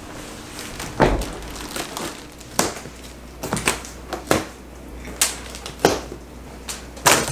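A large cardboard shipping box being set down and handled, with plastic packing straps pulled off it: a series of irregular sharp cracks, crinkles and scrapes about a second apart.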